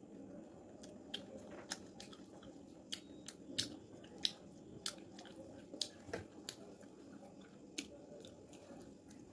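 Eating by hand: fingers mixing rice and chicken curry on a plate, and chewing, with a scatter of sharp, irregular clicks and smacks.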